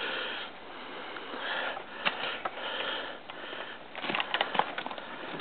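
A person breathing hard and sniffing close to the microphone, in soft swells about once a second, with a few clicks about four seconds in.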